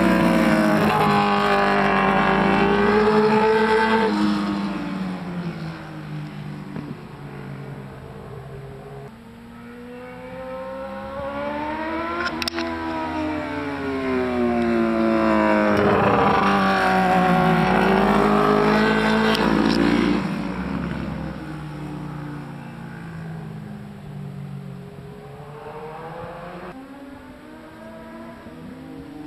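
Sport motorcycles passing at speed on a race track, their engines revving, with the pitch climbing and dropping again and again. Loud at the start, fading, then a second loud pass in the middle that fades away toward the end.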